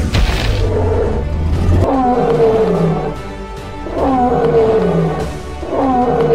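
A sharp thump at the start, then a dinosaur roar sound effect three times, about two seconds apart, each call starting high and sliding down in pitch.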